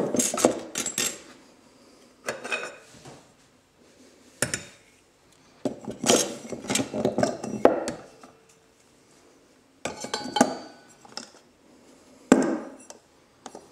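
Steel parts of a 4L60E automatic transmission's sprag assembly clinking and clattering as they are handled and taken apart, in about six separate bouts with short quiet pauses between.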